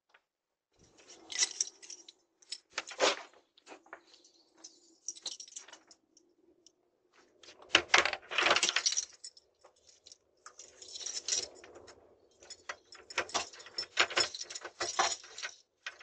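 A bunch of keys jangling and clinking in repeated bursts, being handled at a front door.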